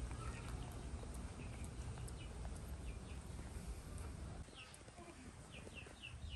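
Birds chirping in short, falling peeps, scattered at first and then several a second from about halfway through, over a steady low rumble and faint clicks.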